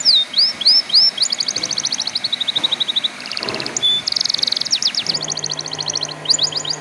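Domestic canary singing a fast, varied song of high sweeping whistles and rapid trills, with one brief held note in the middle.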